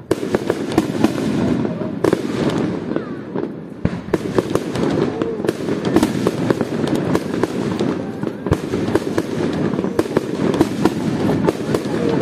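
Fireworks display: a dense, continuous barrage of bangs and sharp pops from shells and low bursts going off, over a steady rumble, starting abruptly.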